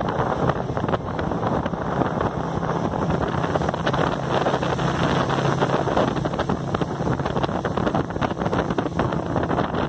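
Speedboat engine running steadily at speed, with water rushing past the hull and heavy wind buffeting the microphone.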